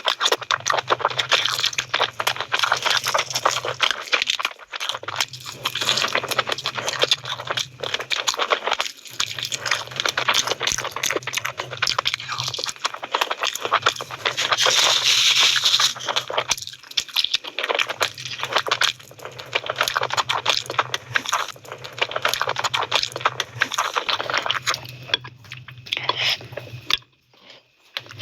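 Close-miked eating of meat curry: a dense, crackling run of wet chewing and tearing, broken by a few short pauses and stopping briefly near the end. A low hum comes and goes in stretches of a few seconds.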